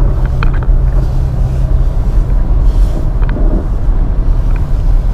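A car driving: a steady low drone of engine and road noise, with a few light ticks.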